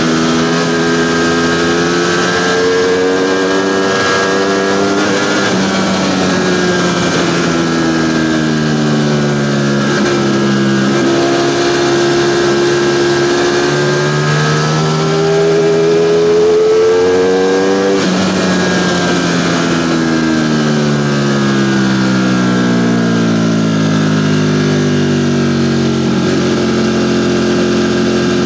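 Ducati Panigale V4 engine running under way, its pitch climbing with a few drops in the first two-thirds, then falling steadily as the bike slows.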